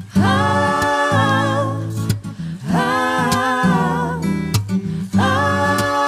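Vocal quartet singing wordless sustained harmony chords over a plucked acoustic guitar, the chords swelling in three times, roughly every two and a half seconds.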